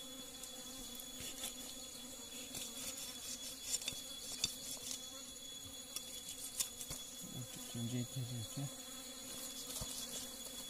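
Steady high-pitched drone of forest insects, with scattered sharp clicks and taps as a knife cuts through meat and bone on banana leaves. A short low hum comes about eight seconds in.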